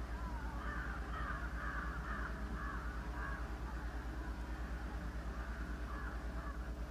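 Many crows cawing faintly, their calls overlapping without a break, over a steady low electrical hum in the old recording.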